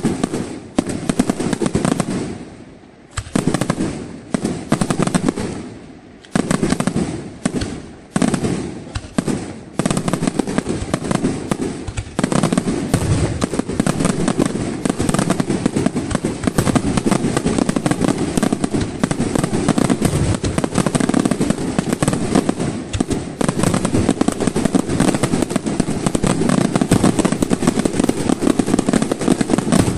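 Aerial firework shells bursting with crackle. The first ten seconds are separate loud bangs about a second apart, each dying away, and then it becomes a dense, continuous barrage of reports and crackling.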